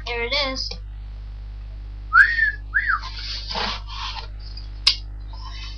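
A person whistles two short notes that rise and fall, while packaging rustles as a box is opened by hand; a single sharp click comes near the end.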